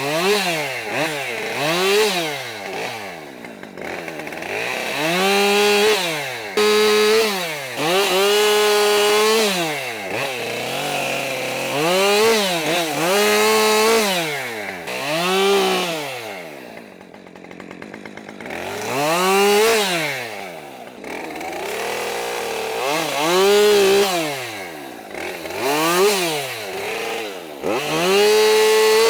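Gas chainsaw being throttled up and down over and over, the engine rising to full speed, holding for a second or so in the cut, then dropping back, with a brief easing-off about two-thirds of the way through. It is bucking logs into rounds.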